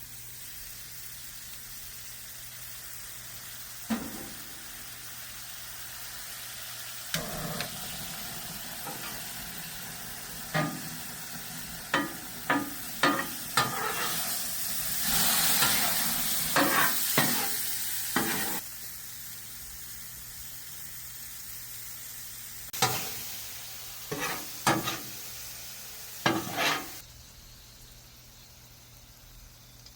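Peach slices sizzling on a Blackstone flat-top griddle, with a dozen or so sharp clicks and knocks of a spatula against the griddle. The sizzle swells louder for a few seconds about halfway through, then settles back.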